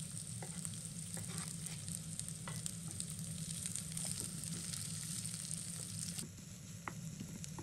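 Sliced onion frying in hot oil in a nonstick pan, sizzling steadily as a wooden spatula stirs it, with occasional light clicks. The sizzle dips a little about six seconds in.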